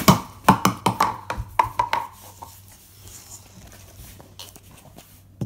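Ice cubes clattering into a cup: a quick run of about ten sharp knocks over two seconds, then faint handling noise.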